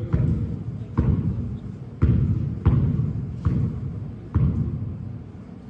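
A basketball bouncing on a court, about six thuds at uneven intervals, each dying away with an echo.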